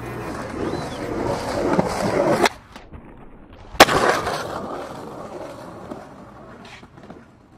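Skateboard wheels rolling on concrete, growing louder until they cut off abruptly about two and a half seconds in. A little later comes one sharp crack of the board on concrete, followed by rolling that fades away.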